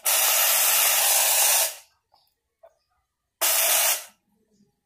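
Loud, even hissing noise that starts and stops abruptly: one long burst of nearly two seconds, then a shorter one of under a second near the end.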